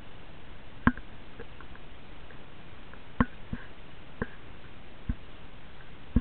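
A steady hiss with about six irregular, sharp knocks or clicks. The loudest come about a second in and at the very end.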